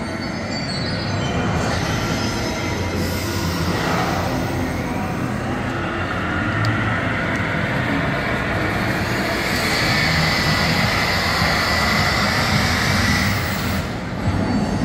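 Train running on rails with a loud continuous rumble. A high steady squeal comes in about halfway through and breaks off near the end.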